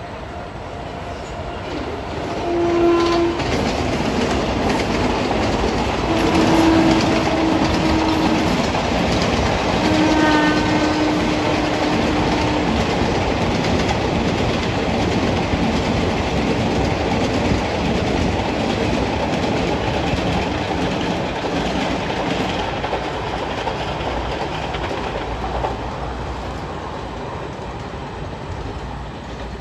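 Garib Rath Express passenger train running past, a steady rumble and clatter of wheels on the track that swells and then slowly fades. The locomotive sounds its horn three times: a short blast about three seconds in, then two longer blasts.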